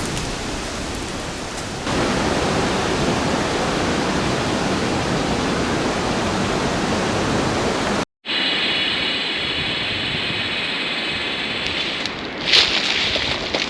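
Steady rush of falling water, a waterfall's roar. It stops dead for a moment about eight seconds in and comes back a little quieter under a faint high whine, with a few sharp crackles near the end.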